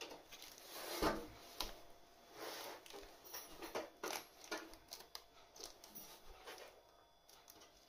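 Plumbing parts being handled: irregular clicks, knocks and rustles, the loudest knock about a second in, dying away near the end.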